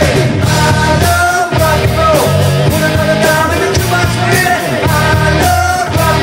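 Rock band playing loud: distorted electric guitars, bass and drums, with sustained, bending guitar lines over a heavy, steady low end.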